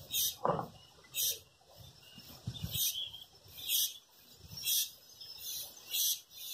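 A high chirp repeating steadily, about once a second, from a small animal.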